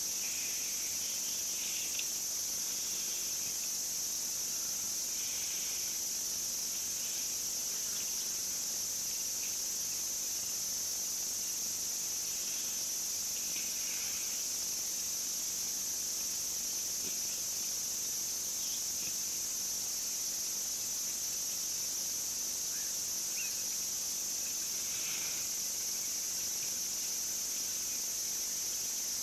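A steady, high-pitched chorus of insects trilling without a break, with a few short, faint chirps scattered through it.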